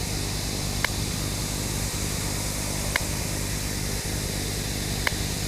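TV static: a steady hiss of white noise over a low buzz, with three short high blips about two seconds apart.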